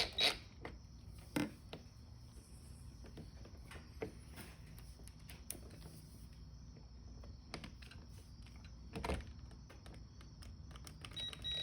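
Scattered light clicks and knocks of handling noise, the loudest about nine seconds in, over a faint steady background.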